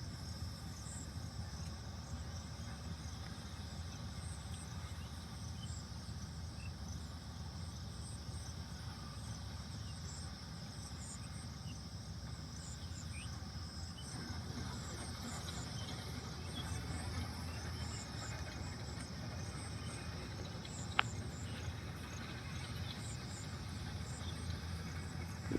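Insects chirping in rapid short high notes over a steady low rumble, with one sharp click about 21 seconds in.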